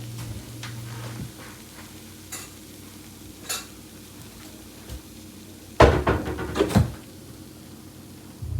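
Scattered light clicks, then a short burst of clattering about six seconds in: small hard objects knocking together, like dishes or utensils being handled.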